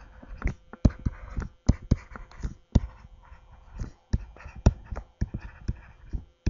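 Stylus handwriting on a tablet PC screen: irregular sharp taps with a soft scratching between them.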